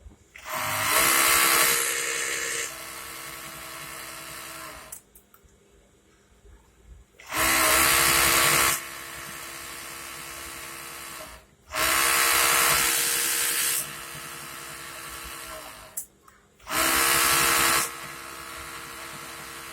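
Freshly serviced small electric motor machine run four times in short bursts. Each run starts loud for about a second and a half, settles to a quieter, steady hum for a few seconds, then cuts off.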